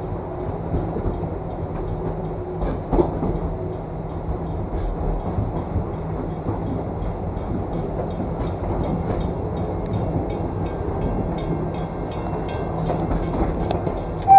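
Wildlife Express passenger train rolling along the track, heard from on board: a steady low rumble and hum with regular clicking of the wheels on the rails, about three clicks a second. There is one louder knock about three seconds in.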